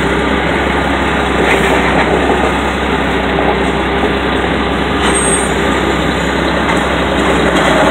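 Heavy machinery engines running steadily at a debris-grinding site: a dense, even engine noise with a faint steady hum, with no change in level.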